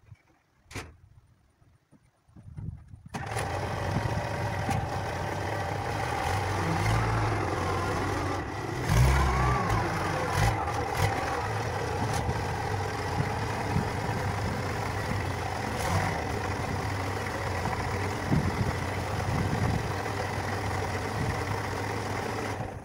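Old wheel loader's engine starting about three seconds in, then running steadily, briefly louder around nine seconds in.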